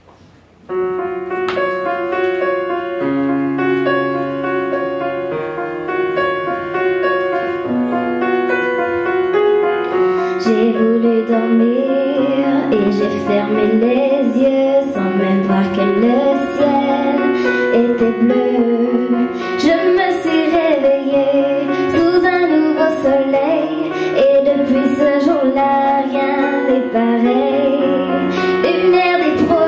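Grand piano playing a slow introduction that starts about a second in, with a girl's voice singing over the piano from about ten seconds in.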